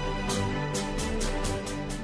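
Channel intro theme music: sustained chords over a quick, ticking beat.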